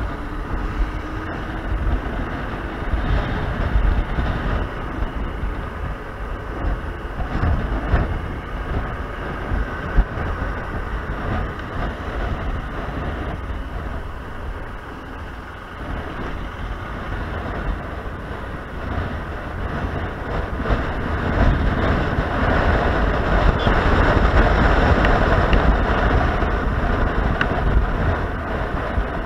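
Wind rushing over the microphone of a moving motorcycle, with engine and road noise underneath, getting louder about two-thirds of the way in.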